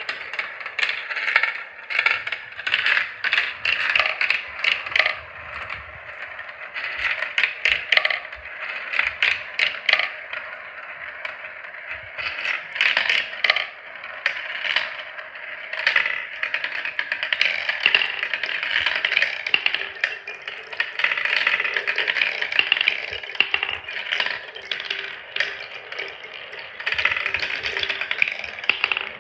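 Marbles rolling through a plastic marble run, rattling and clicking along the tubes and track pieces. From about halfway on, this gives way to a long, steady whirring as a marble spirals around the wide plastic funnels, with clicks still scattered through it.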